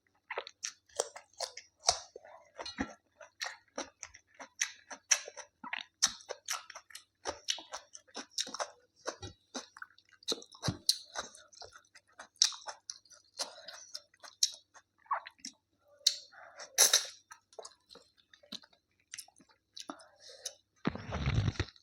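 Close-miked chewing and mouth sounds of a person eating, with irregular wet smacks and crunches. Near the end there is a dull, rumbling thump about a second long.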